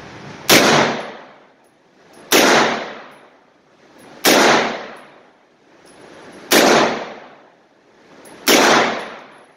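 Heckler & Koch MP5 submachine gun fired on full auto: five short bursts about two seconds apart, each trailing off in the echo of the enclosed indoor range lane.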